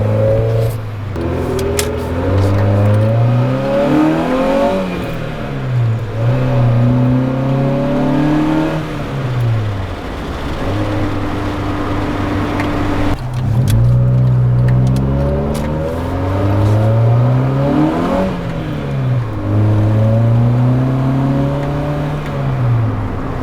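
1998 Honda Civic's four-cylinder engine, with freshly adjusted valves, accelerating through the gears. The engine pitch climbs and drops back at each upshift, about four times. In the middle it holds a steady pitch for a few seconds before pulling up again.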